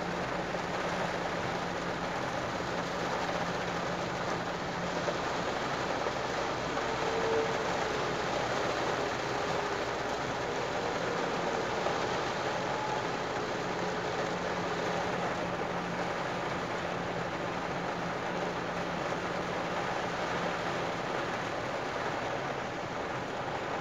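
Heavy rain heard from inside a moving car: a steady hiss of rain on the car and tyres running through standing water on the road. A low engine hum sits under it and comes and goes.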